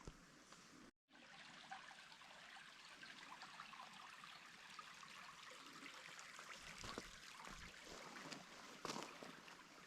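Faint, steady trickling of water, with a couple of soft knocks near the end.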